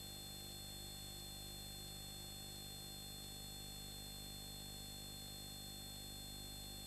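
Faint steady electrical hum and hiss, unchanging throughout, with no other sound.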